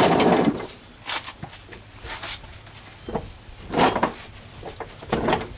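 Steel mower deck being shoved by hand across concrete in short pushes, scraping in separate bursts: a loud scrape at the start, then shorter ones every second or so.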